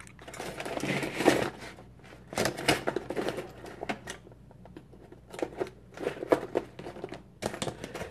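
Hot glue gun being squeezed: irregular clicks and rattles of its trigger feed in several short clusters as the glue stick runs out.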